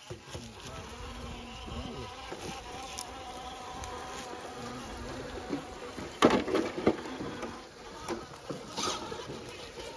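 Radio-controlled rock crawler's electric motor and gears whining, the pitch wavering with throttle. A burst of loud clattering knocks comes about six seconds in, and another near the end.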